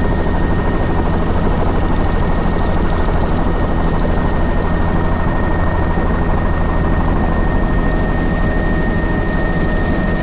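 Helicopter in flight, heard from inside the cabin: a steady, loud low drone from the rotor and engine with a constant high whine over it.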